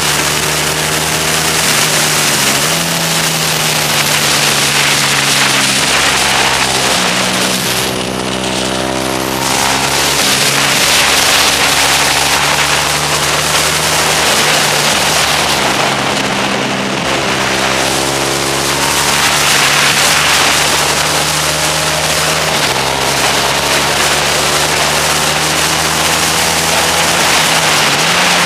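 Motorcycle engine at speed on a lap, revving up and shifting gear every few seconds. Twice, about eight and sixteen seconds in, the pitch falls away as it slows for corners. Heavy wind rush runs over the engine note throughout.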